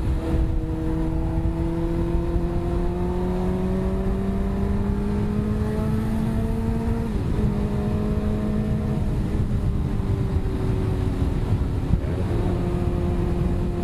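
Small motorbike engine running while riding, its pitch climbing slowly for about seven seconds, then dropping sharply and holding lower. Wind rumbles across the microphone throughout.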